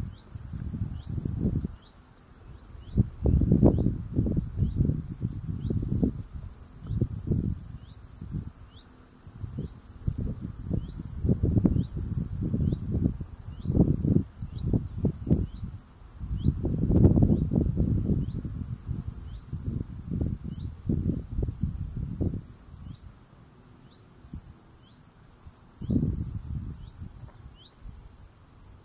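European field cricket singing: a steady, unbroken run of short, high, pulsed chirps, several a second. Underneath, loud irregular bursts of low rumble come and go.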